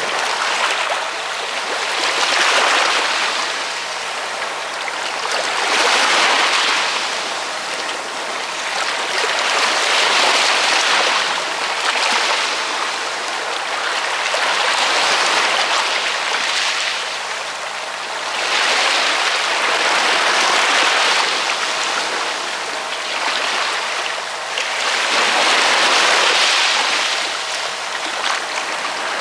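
Ocean waves washing in continuously, the surf swelling and easing in loudness about every four seconds.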